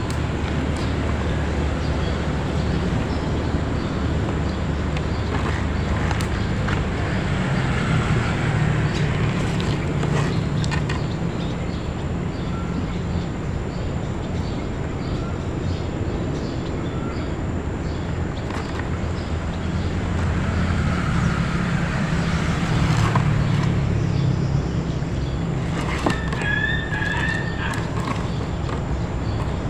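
A low, steady engine hum over outdoor background noise, growing louder about eight seconds in and again a little past twenty seconds, with a few short high chirps near the end.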